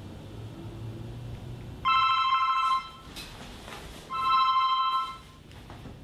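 Telephone ringing: two rings of about a second each, about two and four seconds in, each a warbling two-tone trill.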